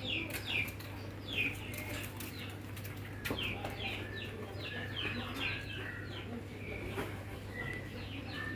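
Small birds chirping: a quick series of short, high, falling chirps, two or three a second, over a steady low hum.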